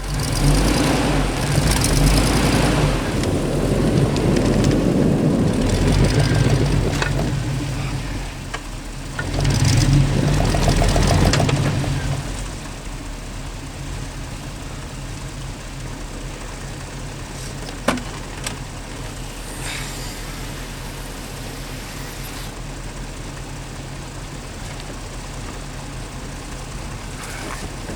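Chevy pickup truck engine revving hard under load in two long pushes, with a short dip between them, as the truck tries to drive forward out of deep snow. About 12 seconds in it drops back to a quiet, steady idle, with one short click about 18 seconds in.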